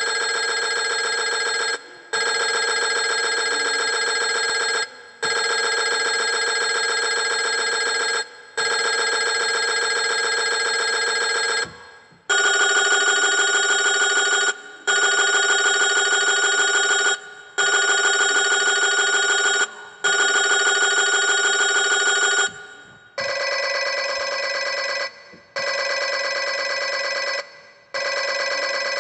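Telephone ringing: long trilling rings, each two to three seconds, separated by short pauses. The ring changes to a different, louder tone about twelve seconds in and changes again to a third, shorter ring about twenty-three seconds in.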